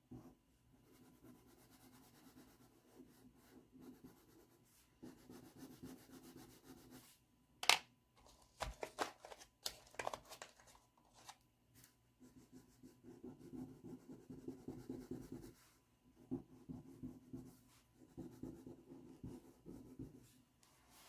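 Pastel stick scratching on paper in repeated colouring strokes. A sharp click about eight seconds in and a few lighter knocks break it up, then the colouring scratches carry on to the end.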